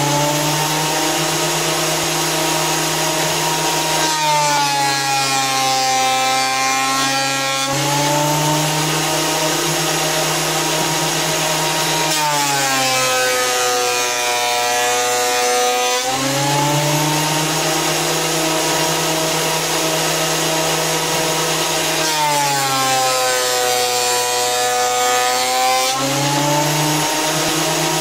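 Fujiyama electric planer running and cutting wood in three passes: the motor whine sags in pitch for a few seconds on each pass as the blades bite, then climbs back to full speed between passes.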